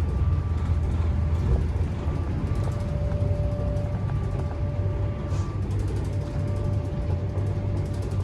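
Running noise inside a moving CrossCountry diesel train coach: a steady low rumble with a faint whine that comes and goes, and light clicks and rattles from the coach.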